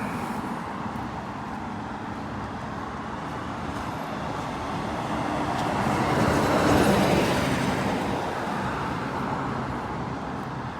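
A car driving past over a steady hum of street traffic, growing louder to a peak about seven seconds in and then fading away.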